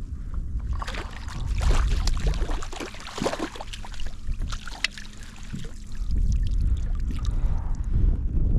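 Water splashing, dripping and knocking beside a kayak as a small crevalle jack is handled in and out of the water. Wind rumbles on the microphone throughout.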